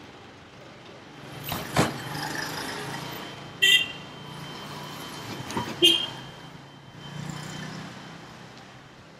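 Street traffic going by. A vehicle passes about a second and a half in, and two short, sharp high beeps come about two seconds apart.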